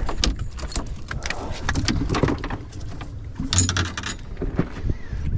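Scattered clicks and knocks as a Spanish mackerel is swung aboard a small open boat and gripped by hand, over a steady low wind rumble on the microphone.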